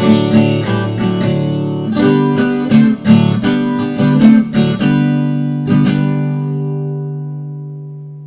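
Viola caipira playing the closing phrase of a moda de viola: a run of plucked notes and strums, then a final chord about six seconds in that rings out and fades away.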